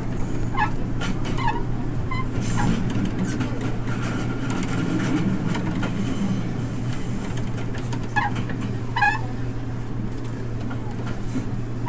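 A diesel railcar running along the track: a steady engine hum with wheel-on-rail rumble, and a few short high chirps about a second in and again near the end.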